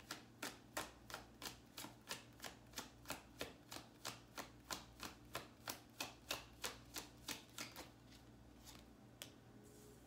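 Tarot deck being overhand-shuffled by hand: faint, even card slaps about three a second, stopping about eight seconds in, followed by a couple of lone taps.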